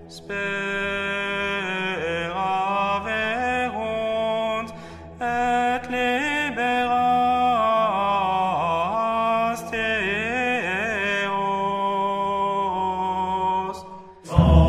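Sung religious chant, a single melodic line of long held notes with ornamented turns, pausing briefly about five seconds in. Near the end it breaks off and a louder, noisier sound cuts in.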